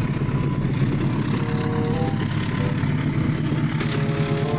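Diesel locomotive engine running with a steady low drone as a passenger train passes.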